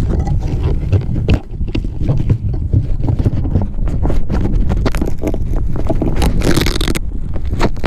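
Fingers rubbing, gripping and shifting on a GoPro Hero Session 5 camera's body: loud handling noise, a steady rumble with many small scrapes and knocks, and a harsher scraping hiss about six and a half seconds in.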